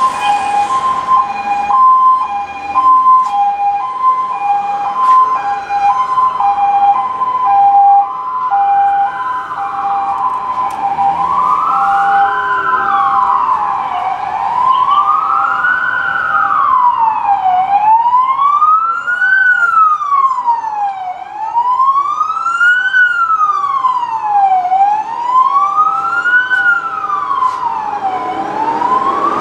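Emergency vehicle sirens: a two-tone hi-lo siren alternating between two pitches fades out over the first several seconds, while a wailing siren takes over, rising and falling about every three and a half seconds.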